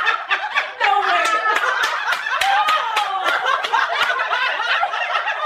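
A person laughing, a wavering snickering laugh with sharp clicks through it.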